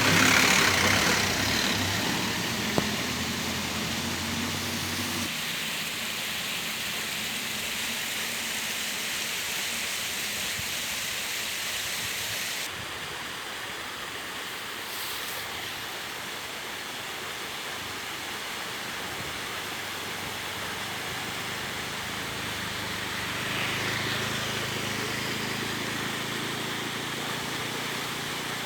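Diesel engine of heavy earthmoving machinery running, its low hum fading after about five seconds into a steady rushing noise, then rising again near the end. A single sharp click about three seconds in.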